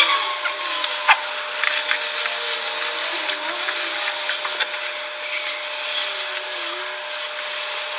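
Crackling and rustling of a wiring harness's corrugated plastic loom as it is handled and pulled open by hand under a truck, with many small clicks over a steady hiss and a faint steady whine underneath.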